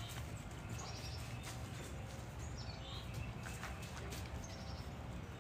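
Wolfdogs and a German shepherd at play: faint scuffling and a few short, high squeaky calls over a steady low rumble.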